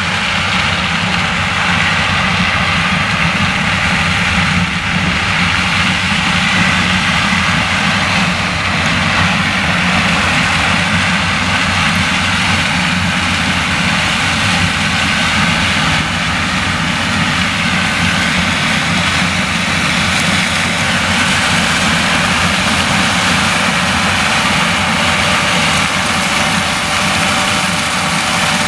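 Claas Lexion 760 TT combine harvester working under load as it harvests maize with a nine-row Geringhoff corn header: a loud, steady drone of engine and machinery that holds constant throughout.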